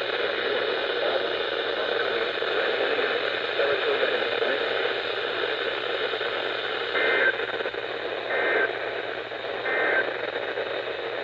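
Weather radio receiver hissing with static on a weak signal. About seven seconds in come three short two-tone data bursts, a second apart: the digital SAME header that opens an Emergency Alert System broadcast.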